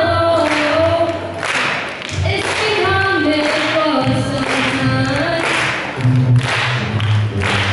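A girl singing a melody while accompanying herself on a plucked upright double bass, which plays low notes under the voice.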